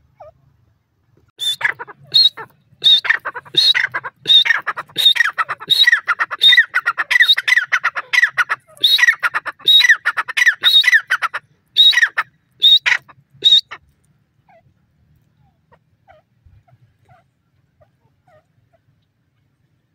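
Grey francolin calling: a long run of loud, high-pitched notes repeated in quick succession. It starts about a second in and stops about two-thirds of the way through, leaving only a few faint chirps.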